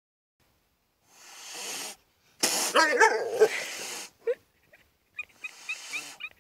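Animal sounds from a cat and a horse at close quarters: breathy snorts or hisses, a louder pitched cry about halfway, then a run of short high chirps near the end.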